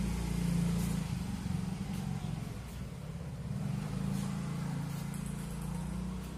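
A motor vehicle engine running nearby, a low hum that swells and fades twice, with a few faint table tennis ball clicks.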